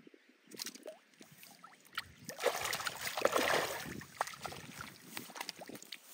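Hooked tilapia thrashing and splashing at the pond's surface, loudest about two to four seconds in, then dying down as the fish is pulled from the water.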